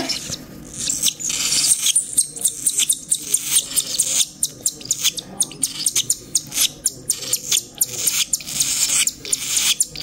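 Three-week-old cockatiel chicks giving raspy begging calls during hand-feeding: a rapid run of short, high chirps, about three a second.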